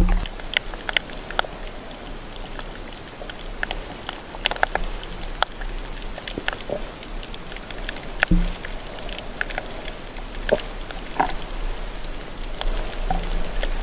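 Underwater sound picked up by a submerged camera: many scattered sharp clicks and crackles over a low hum. A short low sound comes about eight seconds in and again near the end.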